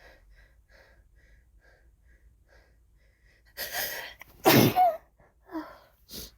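A woman's faint, quick, shaky breaths as a sneeze builds, then a sharp gasping inhale about three and a half seconds in and a loud voiced sneeze right after. A second short burst follows near the end.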